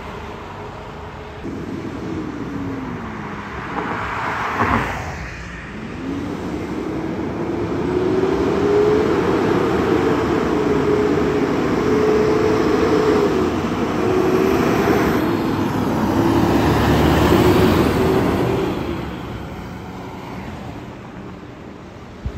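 Fire apparatus going by with a siren sounding. The siren tone falls in pitch, then winds back up and holds with small dips and rises. Heavy engine and road noise swell as the trucks pass, with a short loud rush about a fifth of the way in and a second swell past the middle that fades near the end.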